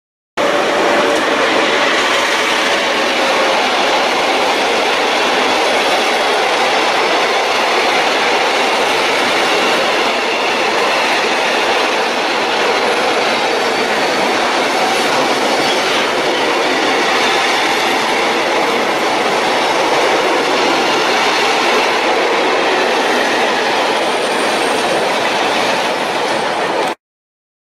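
Freight train of tank wagons passing close at speed: a steady, loud rush of steel wheels on rail that cuts off abruptly near the end.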